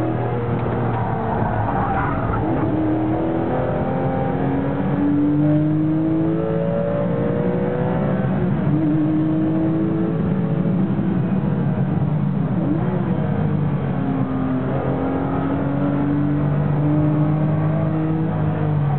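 Porsche 996 GT3 RS race car's 3.6-litre flat-six heard from inside the cabin, pulling hard through the gears: the engine note climbs in pitch and drops back at each upshift, again and again.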